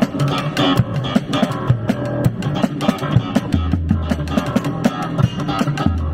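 Guitar-led band music with a bass guitar line and a steady beat.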